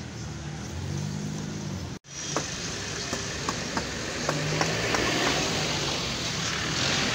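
Hammer knocking on a wooden table-frame rail, a series of sharp taps about two a second starting just after a brief cut about two seconds in, over steady background noise.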